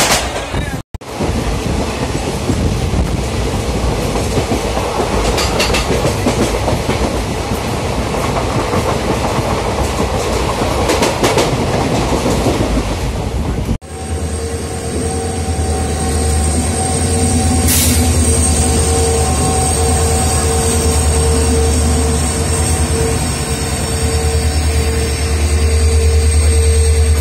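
An express train passing close alongside at speed, heard from another moving train: a loud rush with the clatter of wheels over rail joints. After a cut about 14 seconds in, a steady low hum with a thin high whine as train coaches roll slowly past a station platform.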